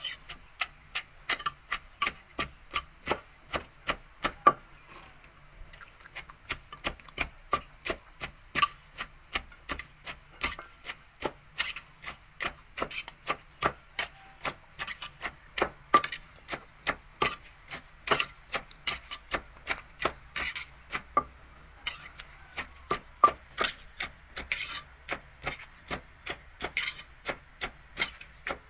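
Wooden pestle pounding shredded green papaya in a clay mortar with steady sharp knocks, about two to three a second, pausing briefly once in the second half. This is the pound-and-toss of making som tam.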